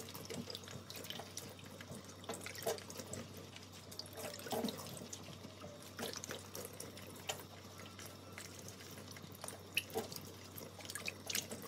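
Quiet room tone with a faint steady low hum and scattered soft clicks and taps.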